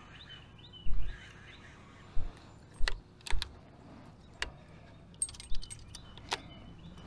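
A few sharp clicks and dull knocks spread out, with a quick run of small metallic clicks about five seconds in.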